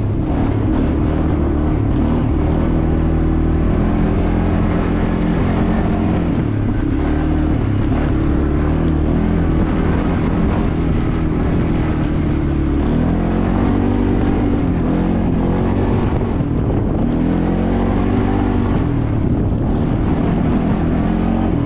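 ATV engine running under way, its pitch rising and falling several times over the second half.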